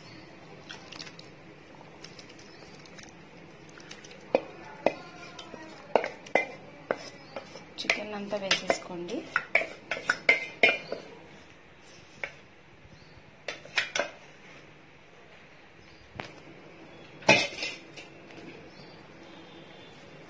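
A spoon clinking, knocking and scraping against cookware while pre-cooked chicken is tipped into a pan of gravy: a rapid run of knocks for several seconds, a few more after a pause, and one loud clatter near the end.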